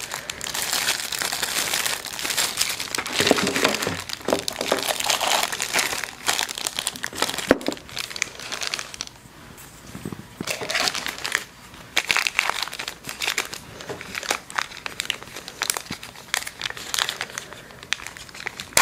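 Plastic packaging bags crinkling and rustling as items are handled, with a quieter stretch about halfway through.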